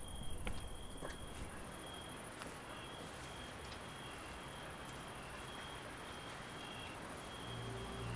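Crickets chirping in repeated short high trills over a faint background hiss. Soft, low sustained music notes come in near the end.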